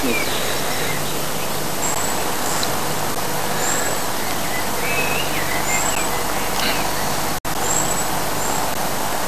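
Steady loud rushing noise with short high bird chirps over it every second or two; the sound drops out for an instant about seven seconds in.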